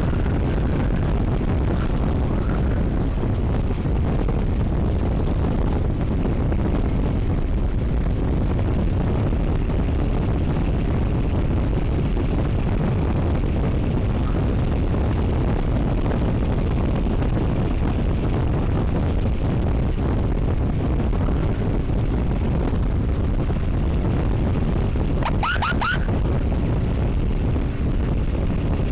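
Steady wind rush on the microphone and road noise from a moving motorcycle. About 25 seconds in there is a brief cluster of short rising chirps.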